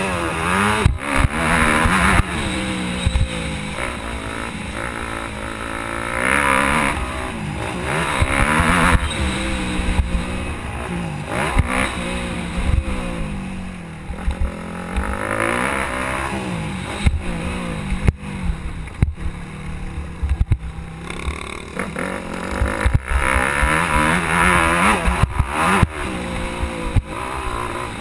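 Yamaha YZ250F motocross bike's four-stroke single-cylinder engine, heard close up from a camera on the bike, revving up and dropping back again and again as the rider works the throttle and shifts. There are short thumps throughout.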